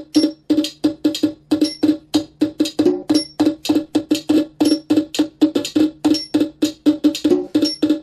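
Roll-up electronic drum pad's built-in speaker sounding a fast, evenly spaced train of pitched clicks, about five a second, like a wood block.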